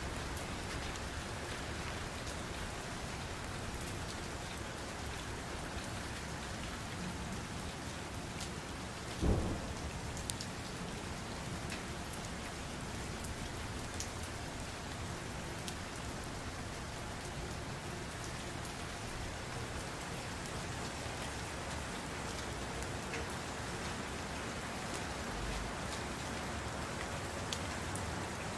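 Steady rain falling, an even hiss with scattered faint ticks, and one short low thump about nine seconds in.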